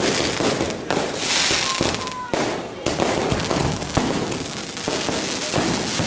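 Fireworks going off in quick succession: many sharp bangs over dense crackling, with a short whistle about two seconds in.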